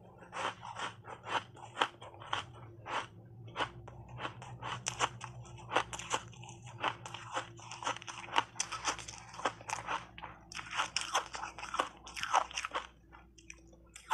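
Block ice coated in matcha powder being chewed: a rapid, irregular run of sharp, crunchy cracks, several a second, as the ice breaks between the teeth.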